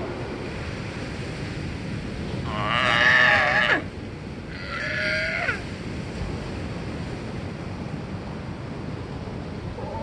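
Two sea lion calls, the first and louder about two and a half seconds in, the second about a second later, each a wavering cry that ends in a falling glide, over the steady wash of ocean waves.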